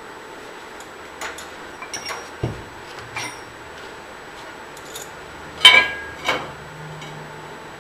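Metal clinks and knocks as a metal bracket is test-fitted against a milling machine: several light clinks, one dull low knock, and a louder ringing clank about two-thirds of the way through.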